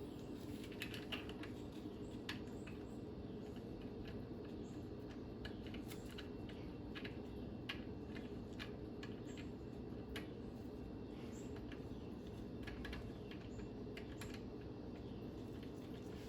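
Irregular light clicks and taps of hands working the nuts onto the stern drive's mounting studs, over a steady low background hum.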